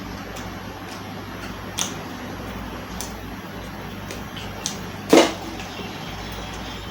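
Close-miked eating: a few small clicks and crunches, then one louder crunch about five seconds in, over a steady low hum.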